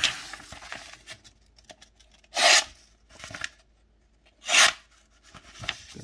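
Paper rustling as it is picked up, then a freshly sharpened pocket knife's clip-point blade slicing through a sheet of paper: two short crisp cuts about two seconds apart, with a fainter one between them.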